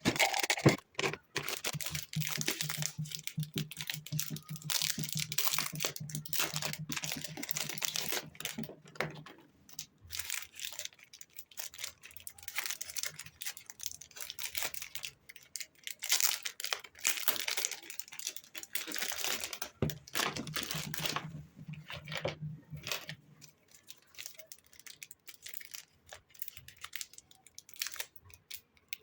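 Paper or packaging rustling and crinkling as it is handled, in irregular bursts, with a faint low hum twice.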